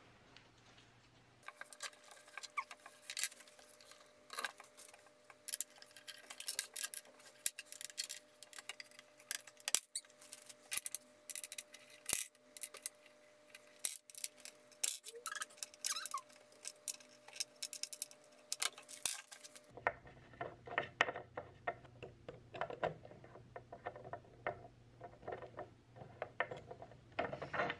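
Irregular clicks, taps and knocks of bamboo furniture parts and metal bolts being fitted together and tightened with an Allen key. The character changes about two-thirds of the way through, becoming denser and fuller.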